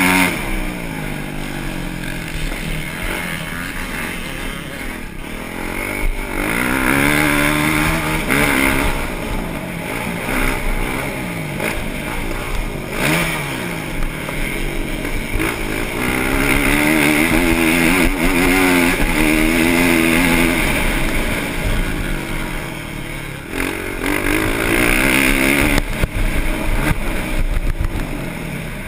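Motocross bike engine heard from an onboard camera, revving up and dropping back again and again as the rider accelerates down straights and backs off for corners.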